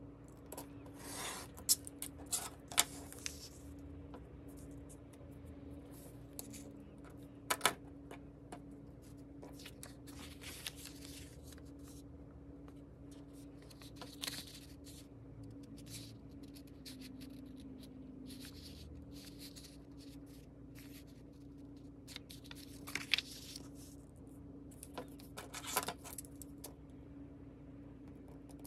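Paper being handled, slid and rubbed flat on a cutting mat: scattered rustles and scrapes with a few sharp taps, over a steady low hum. The video is played at double speed, so the handling sounds come quick and clipped.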